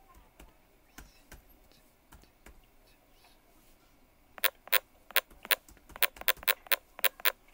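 Typing on a smartphone's on-screen keyboard: a few faint taps, then, from about four and a half seconds in, a quick irregular run of about a dozen sharp clicks as characters are entered.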